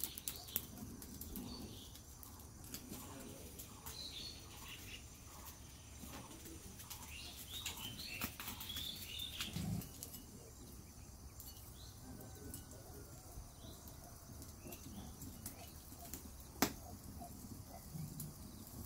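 Faint crackling of a wood fire under pork pieces roasting on a wire grill, with scattered clicks and one sharper click near the end. Birds chirp faintly in the first half.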